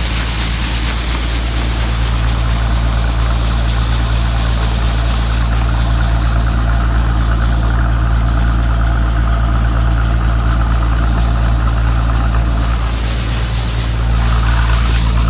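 Gleaner combine's diesel engine running steadily, a low even drone that grows a little louder near the end.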